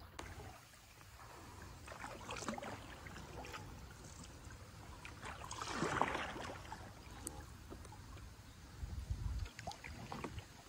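Kayak paddles dipping and splashing in slow river water from a two-seat Grabner Explorer inflatable kayak, in scattered strokes with one louder splash about halfway through. A brief low rumble comes near the end.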